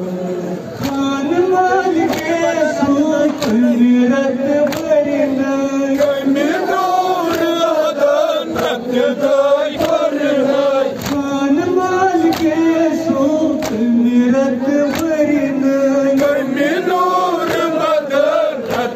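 Men chanting a Kashmiri noha, a Shia lament, led by one male voice on a microphone. Sharp, even chest-beating (matam) strikes keep time about once every 0.8 seconds.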